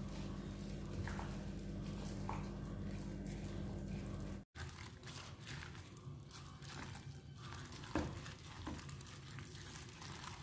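A plastic-gloved hand squishing and kneading pieces of pork shoulder in a thick, wet marinade in a stainless steel bowl, with the glove crinkling and a few faint clicks against the bowl. A steady low hum runs under the first half, and the sound cuts out briefly a little under halfway through.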